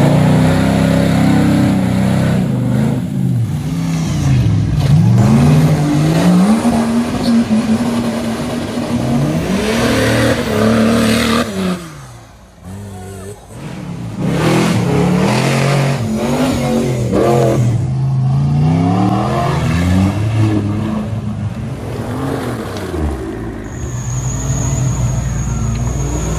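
Off-road 4x4 engines revving hard under load, their pitch climbing and dropping again every couple of seconds as they shift and lift. The sound dips briefly about halfway through, and near the end a steadier engine note with a thin high whine takes over.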